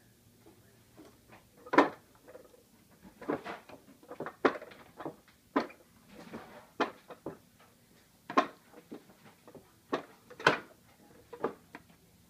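Irregular knocks and clatters of a wooden baby push walker toy being grabbed and banged by a baby, about a dozen hits of uneven loudness with short gaps between them.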